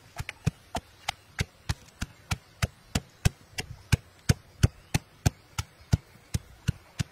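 Long pestle pounding garlic and chopped herbs in a stone mortar: a steady run of dull thuds, about three strikes a second.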